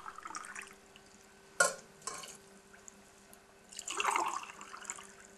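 Water poured from a glass pitcher into a drinking glass, then a single sharp glass knock about a second and a half in. About four seconds in, the glass of water is tipped into a stainless steel pot holding starch, a short splashing pour.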